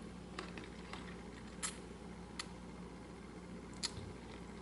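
A few faint, sharp clicks of cutlery tapping on a plate, spaced irregularly, over a low steady room hum.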